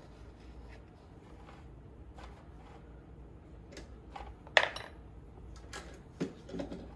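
Small metal clicks and taps of hand tools and wiring hardware being worked, with a sharp metallic clink about four and a half seconds in and another about six seconds in.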